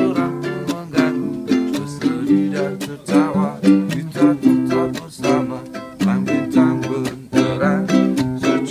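Background music led by plucked strings, with sharp notes struck at a steady, even pace.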